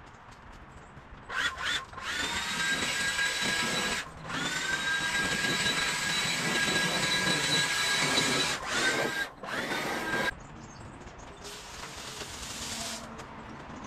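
Cordless Stihl leaf blower run in bursts on the trigger: a high motor whine over rushing air that rises in pitch at each start, with short breaks, then cuts off about ten seconds in.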